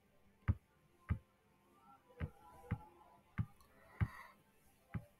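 About seven sharp clicks of a computer mouse, spaced irregularly about half a second to a second apart.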